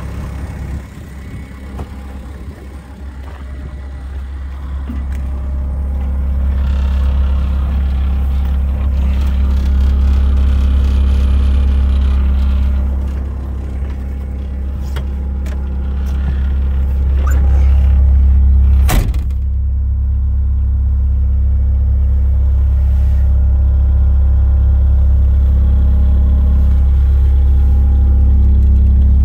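Cat 247B2 compact track loader's diesel engine running steadily, growing louder over the first several seconds. A single sharp click a little past halfway.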